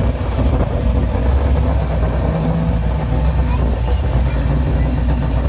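Sleeper Ford saloon's engine idling steadily as the car rolls slowly into position at a drag-strip start line.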